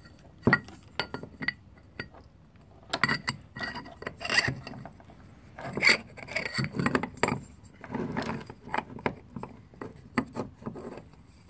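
Hands handling metal motor parts: irregular clinks, knocks and scraping as an emptied motor housing is lifted and fitted down over an aluminium mount plate and shaft coupler.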